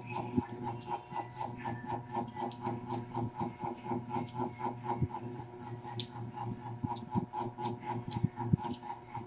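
Eating at a table: scattered sharp clicks and crunches, the loudest near the start and about eight seconds in, over a steady mechanical hum with a fast, even pulse of about five beats a second.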